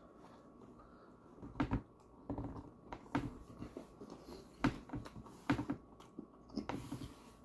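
A person chewing a mouthful of mincemeat pie: irregular wet smacks and clicks of the lips and mouth, with gaps of about half a second to a second and a half between them.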